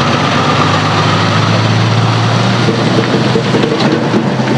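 Highway traffic with a motor vehicle's engine running close by: a loud, steady low drone.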